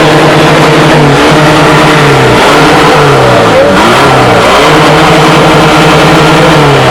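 A modified car's engine revved hard through its exhaust. The revs are held high, drop away twice around the middle and climb back, then fall off at the end.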